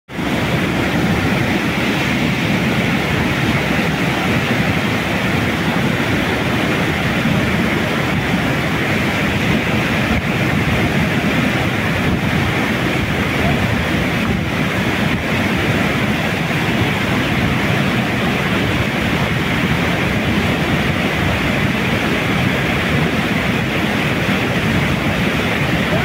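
Fast mountain river rapids rushing loudly and steadily over rocks, a continuous noise of churning white water.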